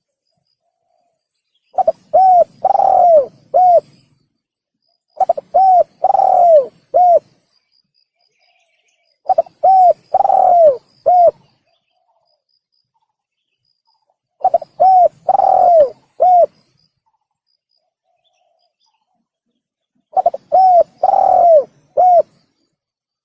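Male spotted dove (tekukur) cooing: five phrases of four short, falling coos each, the third coo the longest and loudest, with silent gaps of several seconds between phrases.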